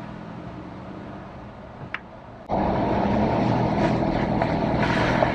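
A vehicle driving, heard from inside the cab: a low steady engine hum, then about two and a half seconds in the sound jumps abruptly to much louder hissing road noise on a wet road.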